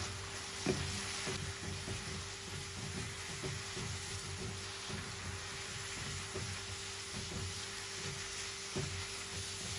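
Diced tomatoes, onion and spices sizzling in a nonstick frying pan while a silicone spatula stirs them, scraping across the pan in repeated uneven strokes.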